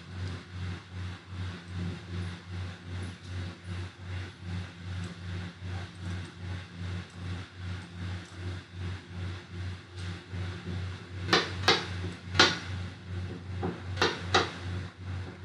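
Steady low hum that pulses about four times a second, with a few sharp clicks about eleven to fourteen seconds in.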